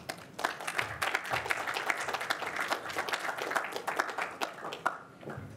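An audience applauding, many hands clapping at once; the applause dies away near the end.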